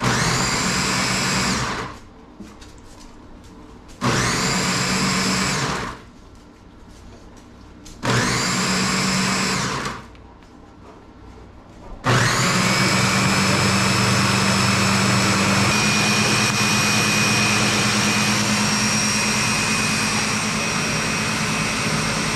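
Ninja blender on its Auto-iQ smoothie program, crushing frozen strawberries and ice. It runs in three pulses of about two seconds with short pauses between them, each pulse rising in pitch as the motor spins up. About halfway through it settles into one continuous blend.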